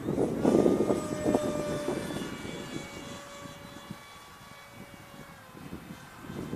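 Whine of an NTM 2836 2200kV brushless motor and 5x5 propeller on a Wing Wing Z84 RC flying wing in flight, fading and dropping slightly in pitch as it goes. Gusts of wind hit the microphone in the first couple of seconds.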